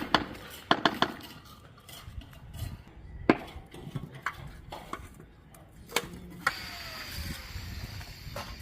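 Sharp hard knocks and clicks: a quick run in the first second, then single knocks spaced a few seconds apart, with a faint steady high whine near the end.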